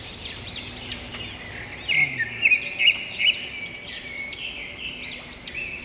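Songbirds singing and calling together: many overlapping high, looping chirps, with a run of sharper, louder chirps about two seconds in.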